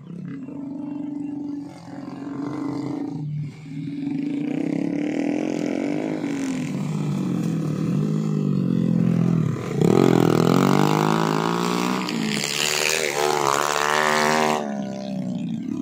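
Small homemade trail motorbike engines straining as the bikes carry sacks of rice grain across a stubble field, the revs repeatedly rising and falling. About ten seconds in, and again a few seconds later, an engine revs up hard with a sharply rising pitch as a bike comes close.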